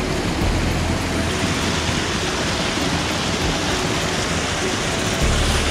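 Steady rush of river white water churning through a narrow sandstone chute.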